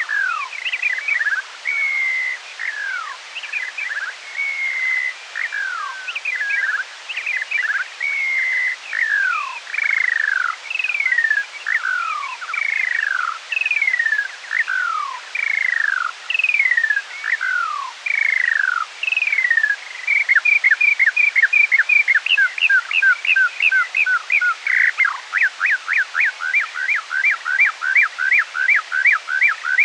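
Skylark song played back at half speed, so the song sounds lower and slower. First comes a string of downward-sliding whistled notes. About two-thirds of the way in it turns into a fast run of short repeated notes, about three or four a second.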